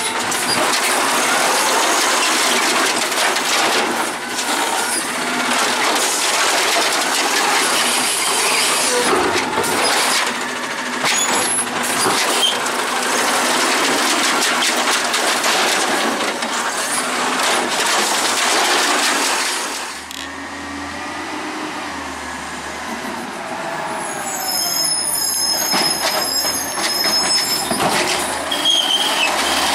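Autocar ACX refuse truck with an Amrep automated side-loader arm working a recycling pickup: engine and hydraulics running loud while the arm grabs, lifts and dumps the cart, with the load clattering into the hopper. About twenty seconds in it drops to a lower engine note with gliding hydraulic whine, and high brake squeals come in near the end.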